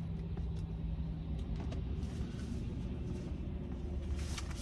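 A truck's engine running with a steady low rumble, heard from inside the cab; a steady hum over it stops about a second and a half in, and a couple of light clicks come near the end.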